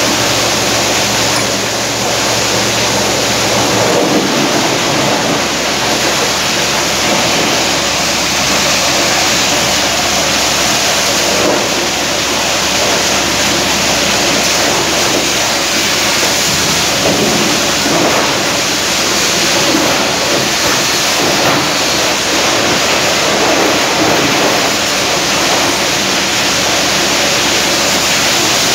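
Kalender plastic crushing machine (granulator) running, with a loud, dense, steady clatter of plastic being ground. A low hum stands out in the first few seconds.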